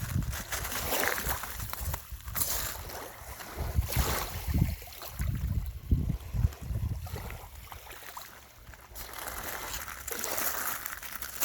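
Small waves washing and sloshing on a lakeshore, with gusts of wind buffeting the microphone.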